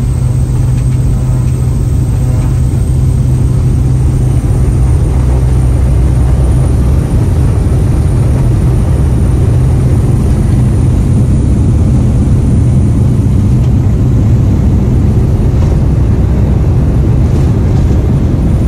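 Light aircraft's engine and propeller droning steadily and loudly in flight, a low hum over a constant rush of air.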